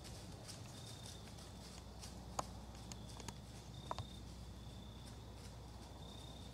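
Quiet woodland ambience: a low steady hum, a faint short high note repeating about once a second, and a few sharp snaps or cracks in the leaves, the two loudest about two and a half and four seconds in.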